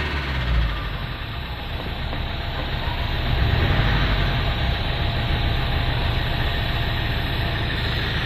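Mahindra Scorpio S4's turbo-diesel engine coming down from a rev in the first second, then idling steadily. The engine has a boost-pressure fault (code P0234) that brings the check-engine light back on when it is revved.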